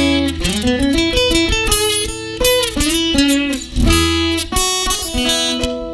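Ibanez AEL207E seven-string acoustic-electric guitar playing a picked single-note melody, with several notes sliding up into pitch.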